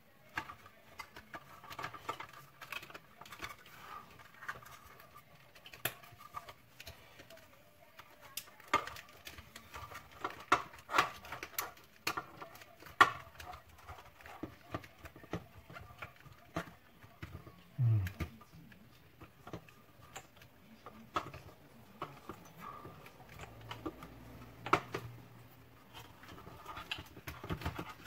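Irregular clicks, knocks and rustles of plastic vacuum-cleaner parts being handled and fitted together by hand, with a short low sound dropping in pitch about two-thirds of the way in.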